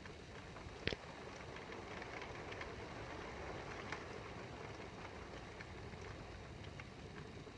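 Steady rain during a thunderstorm, with scattered drops ticking on a nearby surface and one sharper tap about a second in.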